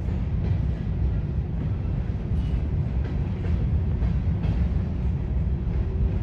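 Freight train rolling past at close range: a steady heavy rumble of cars on the rails, with a few faint clicks of wheels over rail joints.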